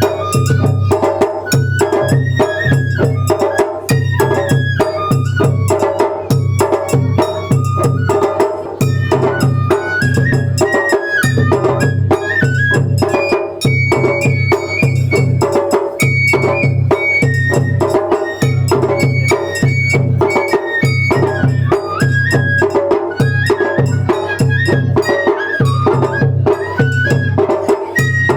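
Japanese matsuri-bayashi festival music: a high bamboo flute melody moving in steps over steady, rapid taiko drum beats.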